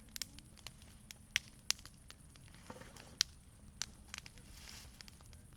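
Wood campfire crackling, with sharp pops at irregular intervals over a low hiss.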